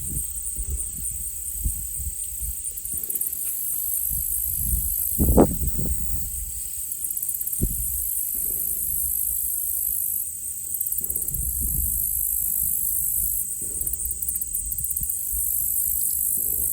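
A steady, high-pitched chorus of insects trilling on and on, over a low rumble. Several dull distant gunshots from a shooting range sound as low thumps that fade out, the loudest about five seconds in.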